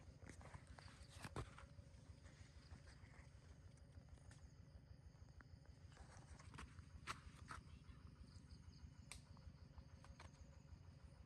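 Quiet outdoor ambience with a low rumble and a few faint, scattered light clicks and taps.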